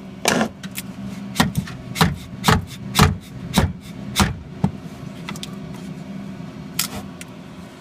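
Sharp plastic taps and clicks, about two a second for four seconds and one more near the end: a tool prodding and prying at a 3D-printed plastic part stuck to the printer bed. Under them runs a steady low hum.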